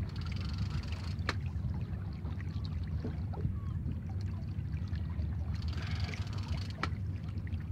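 Ambience aboard a small fishing boat at sea: a steady low rumble with water sloshing, and two sharp clicks, one about a second in and another near the end.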